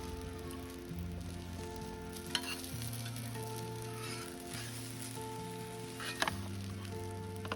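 Food sizzling as it fries in a pan, with sharp clinks of a utensil against the pan about two and a half and six seconds in. Soft background music plays underneath.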